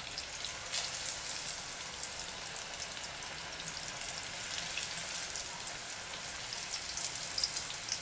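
Breaded pork belly cubes deep-frying in hot soybean oil: a steady, dense sizzle peppered with many small pops.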